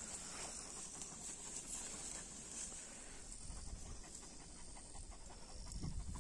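Georgian shepherd dog (nagazi) panting faintly.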